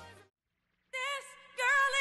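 Background music: one track fades out to a brief moment of silence, then another track begins about a second in and grows louder.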